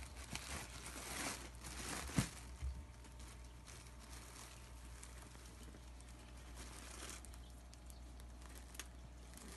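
Clear plastic bag crinkling and rustling as an animal pushes its head into it. It is loudest in the first three seconds, with a sharp crackle a little after two seconds, then goes on as softer rustles.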